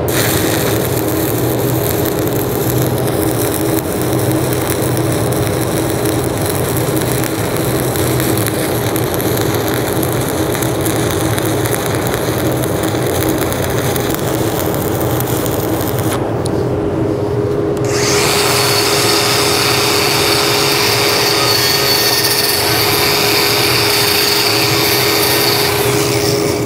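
Stick welding arc crackling and hissing steadily while a cap pass is run on a steel plate joint. About sixteen seconds in it stops, and after a short break an angle grinder runs against the plate with a steady whine.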